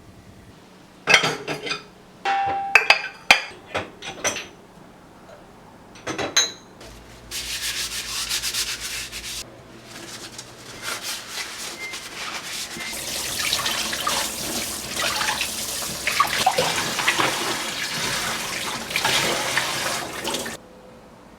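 Kitchen containers and fridge parts clinking and knocking as they are handled, then two stretches of scrubbing with water running, the second one long, as fridge parts are washed.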